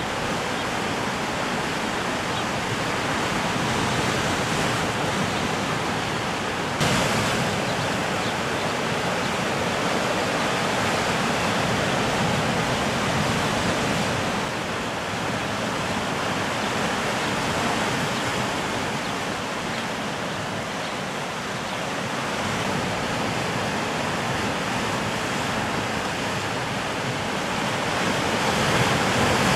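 Sea surf breaking and washing against a rocky shoreline: a steady rushing noise that swells and eases, stepping up suddenly about seven seconds in and growing louder again near the end.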